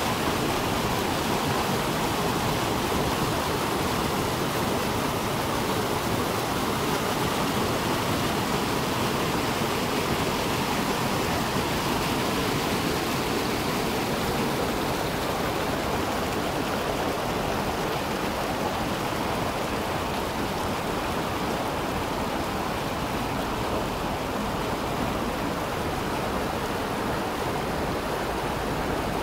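Rushing Himalayan mountain stream pouring over boulders: a steady rush of white water.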